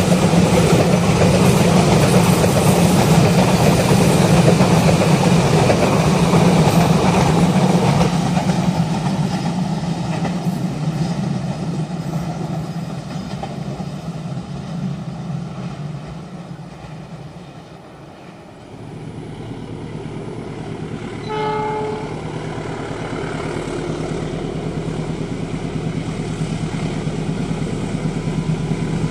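Passenger train of Indonesian railways passing close by, its diesel locomotive and carriages loud at first and then fading away over about eighteen seconds. About twenty-one seconds in there is a brief horn note, and then a steady engine hum rises again.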